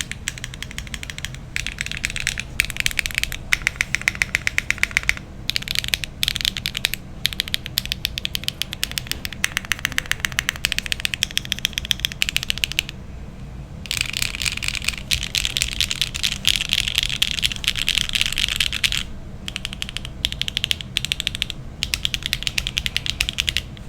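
Fast typing on a Qwertykeys Neo65 mechanical keyboard with HMX Emo switches on a carbon-fibre plate, no foam inside, fitted with Key Kobo Violet on Cream ABS doubleshot keycaps. Keystrokes come in rapid runs, with short pauses, the longest about 13 seconds in.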